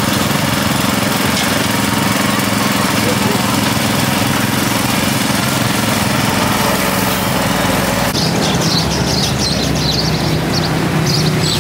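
A small engine running steadily, with a hum and a hiss. About eight seconds in the hiss cuts off sharply and high, quick chirping starts over a continuing low hum.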